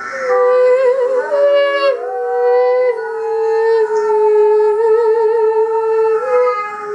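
A high voice humming long held notes that step between nearby pitches, with a wavering vibrato on some of them, stopping near the end.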